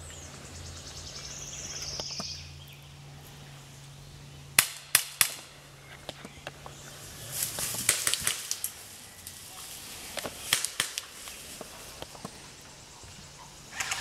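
Airsoft guns firing single shots in sharp cracks: a few close together about four and a half seconds in, more around eight and ten seconds, and again at the end.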